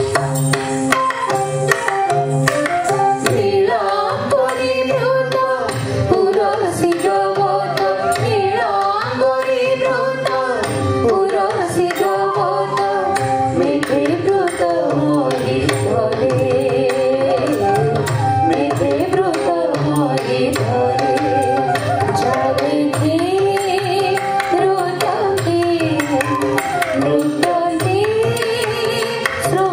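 Indian classical dance music for Odissi: a bending, ornamented melody, partly sung, over a steady hand-drum rhythm.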